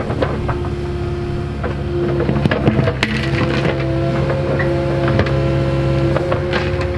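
Kubota KX080-4 excavator's four-cylinder turbodiesel running under load with a steady hydraulic whine that rises slightly about three seconds in, as the bucket digs around a cherry stump with scattered cracks and snaps of roots and soil.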